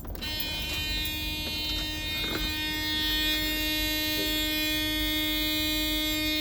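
Freightliner Classic's dash warning buzzer sounding one steady, unbroken buzz with the ignition switched on, as the truck fails to start.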